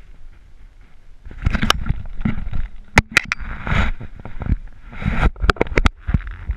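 Water splashing and sloshing at the surface around a GoPro in its waterproof housing, with irregular sharp knocks and clicks as the housing is handled and bumped.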